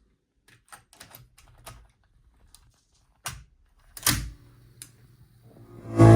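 A run of light mechanical clicks from a vintage Kenwood cassette car stereo being handled, then a louder clack about four seconds in. Music starts just before the end.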